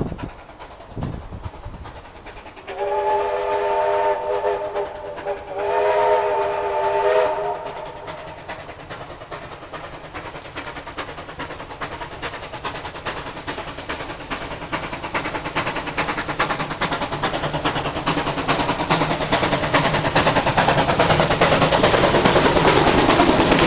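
A train sounds two long whistle blasts of several notes at once, about three and six seconds in, then its running noise grows steadily louder as it approaches.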